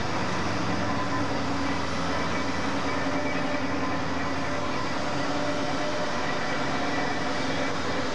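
A DB class 23 steam locomotive being turned on a railway turntable: a steady hum and hiss with a few faint, steady whining tones.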